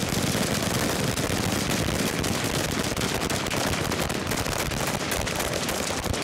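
Sustained volley of rapid gunfire from a line of police assault rifles, many shots overlapping with no break.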